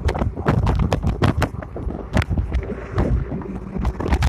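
Wind buffeting the camera's microphone: a heavy low rumble broken by many sharp crackles.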